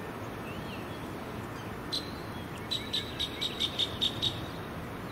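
A bird singing: one high chirp about two seconds in, then a quick run of about eight repeated chirps, about five a second, over a steady low background noise.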